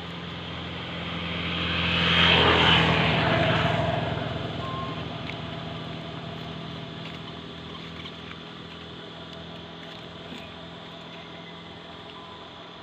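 A vehicle passing by, growing louder to a peak about two to three seconds in, then slowly fading away.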